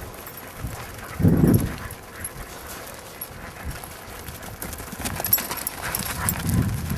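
Sheep hooves clattering as the sheep run from a herding dog in a pen, with a louder low sound about a second in and again near the end.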